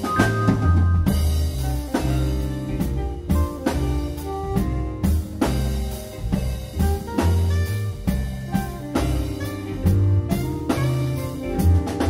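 A band playing a groovy, laid-back instrumental jam: drum kit keeping a steady beat under a low bass line and keyboard chords.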